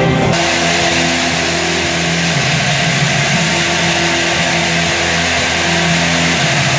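A dense, loud wash of stadium crowd noise, cheering and clanging cowbells, starts suddenly about a quarter second in, over the marching band's low brass holding long notes that break off and resume every second or two.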